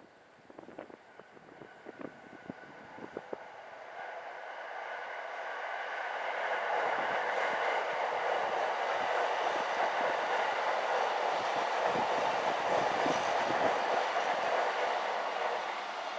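A train running past: scattered clicks at first, then a steady rush of running noise that builds over a few seconds, holds loud, and eases off near the end.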